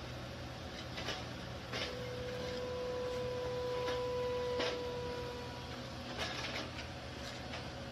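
Steady machine hum with scattered sharp clicks and knocks. A steady high tone starts about two seconds in and holds for roughly three and a half seconds.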